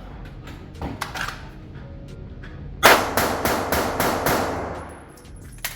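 Pistol fire at a shooting range: a few fainter cracks, then a quick string of shots about four a second starting just before the middle, with another single shot near the end.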